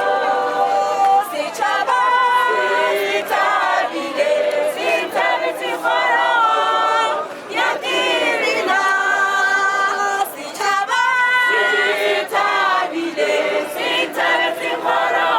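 A choir singing a cappella: several voices in harmony, holding notes and moving between them.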